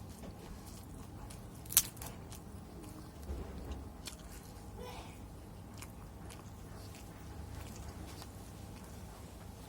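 Close-up eating sounds of a person chewing chicken with sambal matah, with scattered small mouth clicks and one sharp, loud crunchy bite about two seconds in.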